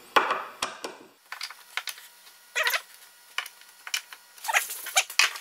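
Wood screws being turned by hand with a screwdriver into a hardboard vise face: a run of short squeaks and clicks as the screws tighten, with a sharp click just after the start.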